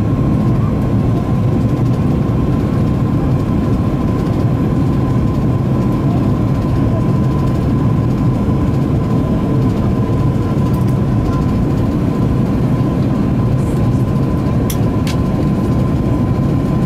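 Airbus A330-200 cabin noise during the descent to land: the steady low drone of the engines and rushing air, with a thin steady tone above it. Two faint clicks come near the end.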